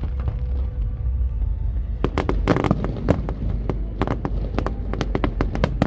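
Fireworks display: a low rumble, then about two seconds in a rapid run of sharp bangs and crackles from the bursting shells.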